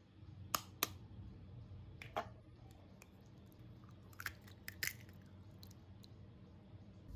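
Raw eggs cracked on a knife blade over a glass bowl: a few sharp taps on the shell, followed by the soft wet slop of the white and yolk sliding into the bowl. There are taps twice within the first second, once about two seconds in, and a quick cluster a little past four seconds as a second egg is cracked.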